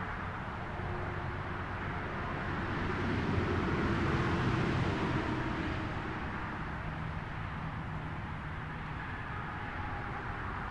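Road traffic: a passing vehicle's tyre and engine noise swells about three to five seconds in and fades, over a steady traffic hum.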